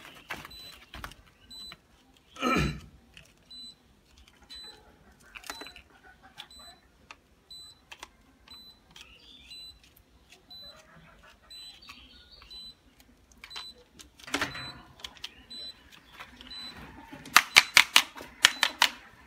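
Handling noise from work on a miniature circuit breaker in a metal distribution box: scattered plastic clicks and a few knocks as the breaker and its wires are handled, then a quick run of sharp clicks near the end, about five a second, as a screwdriver is worked.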